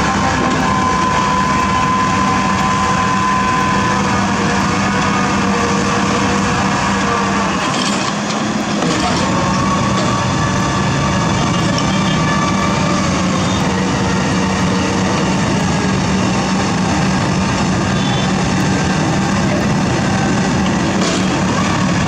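Heavy diesel construction machinery running steadily under load, a continuous low engine hum with a high whine that shifts in pitch now and then.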